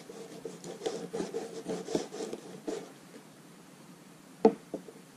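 Kitchen knife cutting and scraping fat from a seal flipper on paper over a counter, a quick run of rasping strokes for about three seconds. Near the end, a sharp knock followed by a lighter one.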